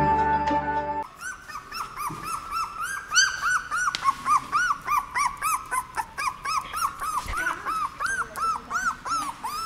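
Young border collie puppy, about 17 days old, whimpering over and over in short, high, arching squeaky cries, about two or three a second. Background music cuts off about a second in, just before the cries begin.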